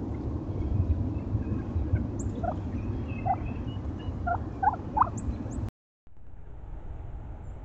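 Wild turkeys giving five or six short calls in quick succession, over a steady low rumble. The sound drops out for a moment about six seconds in, and a quieter steady hiss follows.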